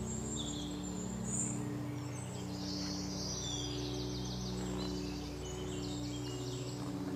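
Birds chirping and trilling with high, quick calls, over a soft bed of low held tones from ambient background music.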